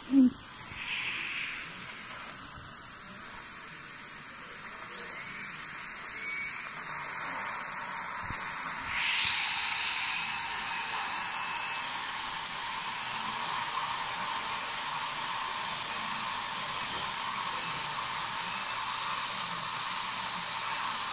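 Dental suction hissing steadily while a high-speed dental drill whines briefly a few times, then runs steadily and louder from about nine seconds in, drilling out a child's cavity.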